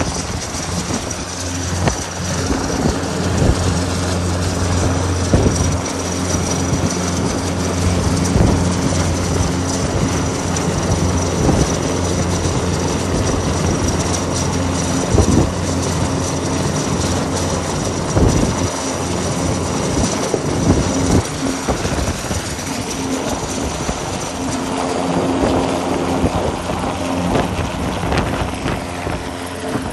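Helicopter hovering close by, its rotor and turbine running as a steady low drone with a thin high whine, mixed with heavy gale-force wind noise and buffeting. The whine fades out near the end.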